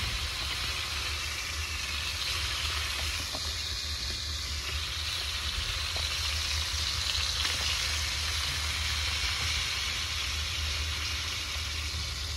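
Whole fish shallow-frying in oil in a nonstick pan, sizzling steadily, with a steady low rumble underneath.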